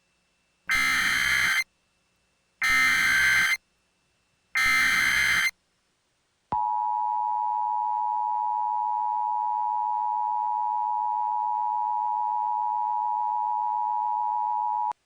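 Emergency Alert System SAME header: three short bursts of warbling digital data tones, each about a second long with a second's gap between them. Then comes the EAS two-tone attention signal, a steady dual tone held for about eight seconds that cuts off sharply, announcing that an emergency alert message follows.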